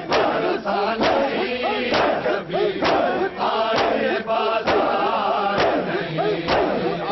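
A crowd of men chanting a Shia mourning lament (nauha) in unison, with the sharp slap of hands beating on bare chests (matam) landing together about once a second.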